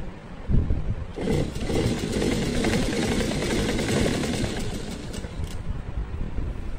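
Domestic sewing machine stitching: after a thump about half a second in, it starts running about a second in, and the needle and feed mechanism clatter rapidly and steadily as fabric is fed through.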